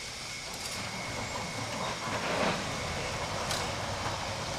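Motorised overhead shop door rolling open: a steady electric-motor drone with rattling, a thin whine for the first couple of seconds, and a few sharp clicks later on.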